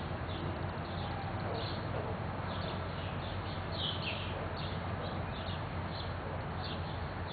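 Gray catbird singing: a run of short, varied chirps several times a second, with a steady low hum beneath.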